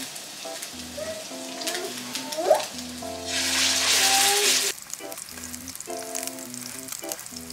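A raw hamburger-steak patty laid into a frying pan of hot oil over high heat, sizzling loudly for about a second and a half, a little over three seconds in. Light background music with a plain melody plays throughout.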